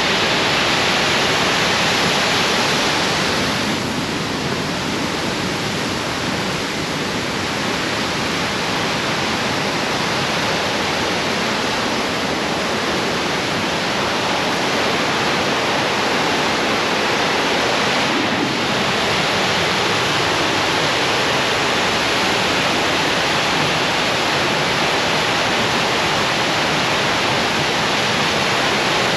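Waterfall and whitewater rapids rushing, loud and steady.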